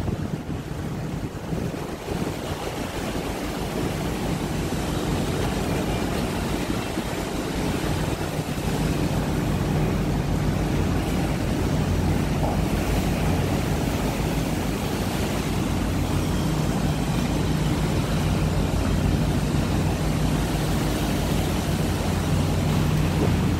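A vessel's engines running with a steady low hum, under the wash of rough sea water against the hulls and wind buffeting the microphone.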